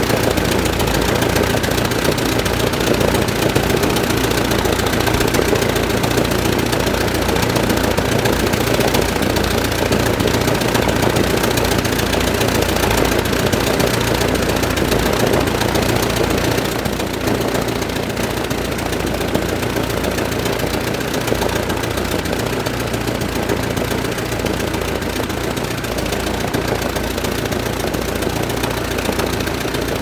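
De Havilland Tiger Moth's Gipsy Major four-cylinder inverted inline engine and propeller idling steadily while the biplane stands on its chocks, easing slightly about halfway through.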